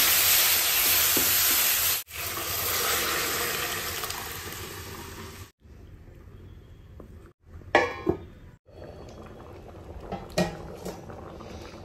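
Onion-tomato masala sizzling in oil in a steel kadai as it is stirred with a wooden spatula, a hiss that fades away over the first five seconds. Near eight seconds a stainless-steel lid clanks against the pan with a brief ring, followed by a few faint clicks.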